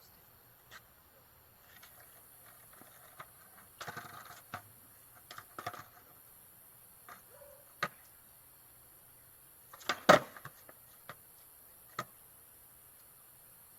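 Skateboard knocks and clacks: short rattling stretches of the board and wheels, single sharp clicks, and a loud clatter of impacts about ten seconds in.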